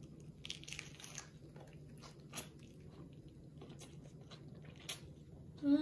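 Person chewing a mouthful of cheeseburger slider on a soft brioche bun, with small wet clicks and soft crunches. A short voiced hum comes near the end.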